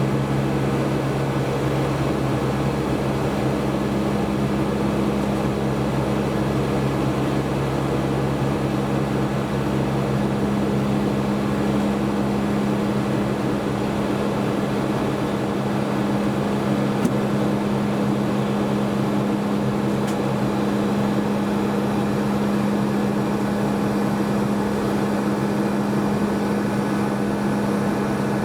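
Steady cabin noise inside a Boeing 757 in flight: the Rolls-Royce RB211 engines hum with two steady low tones over an even rush of airflow. A deeper rumble underneath fades out about halfway through.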